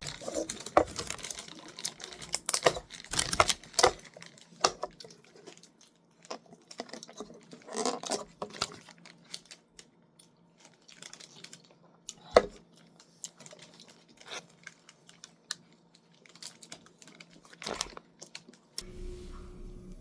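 Irregular handling noises: scattered sharp clicks and taps mixed with crinkling, tearing rustles, busiest in the first few seconds, with one loud click about twelve seconds in.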